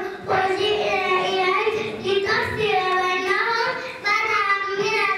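A young girl singing into a handheld microphone in short phrases of held notes, with brief breaks between them.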